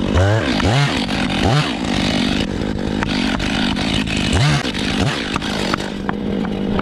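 Two-stroke chainsaw engine revved in short throttle blips, its pitch rising and falling quickly several times in the first second or two and twice more near the middle, over a steady running hum.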